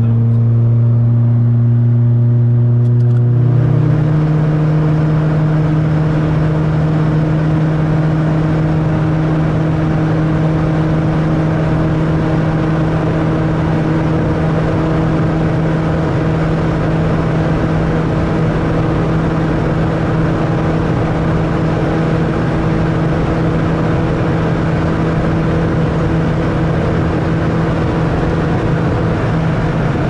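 Lada 2114 with a loud aftermarket exhaust, driving at a steady speed: the engine and exhaust drone holds one steady note. About three and a half seconds in the note steps up in pitch, then holds, with road and tyre noise underneath.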